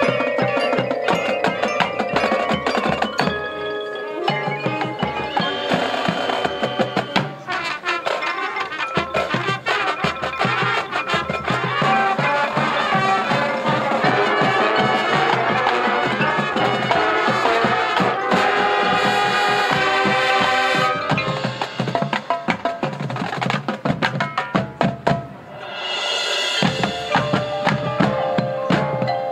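High school marching band playing its halftime show, with snare drums, mallet percussion and wind instruments over a rhythmic percussion part; a short lull about 25 seconds in is followed by a swelling crescendo.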